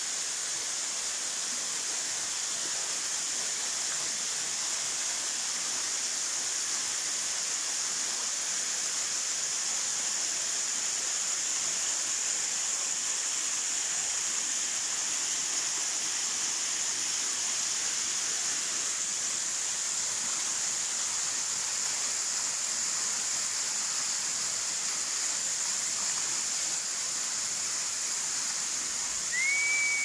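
Waterfall pouring down a rock face into a shallow pool: a steady rushing hiss of falling water. A short whistle, rising and then dropping, comes in right at the end.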